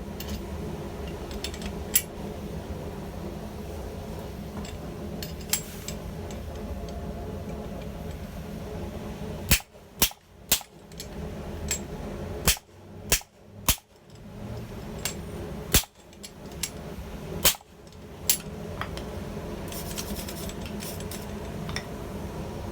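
Blacksmith's hammer striking steel on an anvil while forging tongs: about ten sharp, irregularly spaced blows, most of them between about ten and eighteen seconds in, over a steady low hum.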